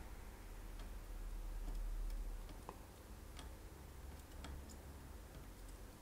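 Faint, scattered ticks and small pops, unevenly spaced, as a soldering iron melts solder onto the pins of a DVI connector on a circuit board, over a low steady hum.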